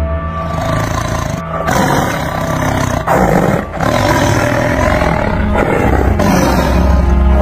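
A tiger roaring and growling over and over, several long roars one after another. It is a sound effect laid onto a computer-generated tiger.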